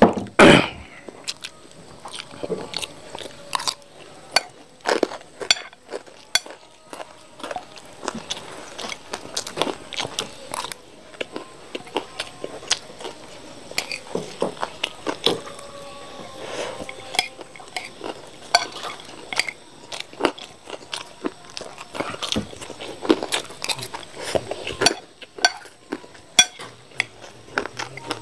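Close-miked eating: a metal spoon scraping and clinking on a ceramic plate of fried rice, with chewing and crunching of small round tiktak crackers. Many short clicks and crunches, with a louder burst right at the start.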